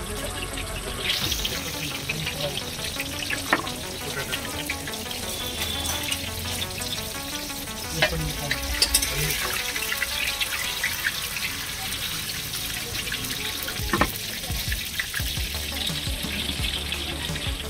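Steady sizzling hiss of hot oil deep frying, with a few sharp knocks of a knife cutting fried kababs on a wooden block.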